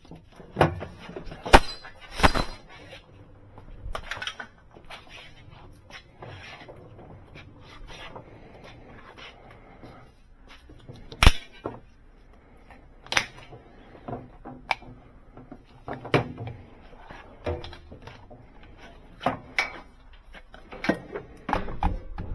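Scattered sharp clanks, clicks and knocks of hand tools and metal parts being handled at a workbench, loudest twice within the first few seconds and again near the middle, with quieter rattles and taps between.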